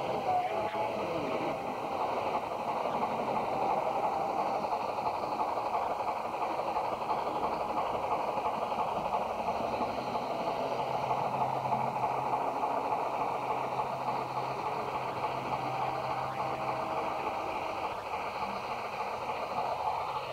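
Model steam locomotive hauling a train of hopper cars, wheels rolling on the track with a steady running noise. A low steady hum joins in for several seconds around the middle.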